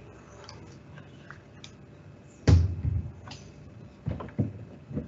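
A sudden thump about halfway through, then a few shorter, softer knocks near the end, over a faint steady background hiss.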